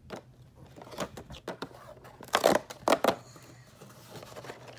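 Plastic baggies being pulled out of a cardboard toy box: rustling and scraping of plastic and cardboard, with two louder rustles about halfway through.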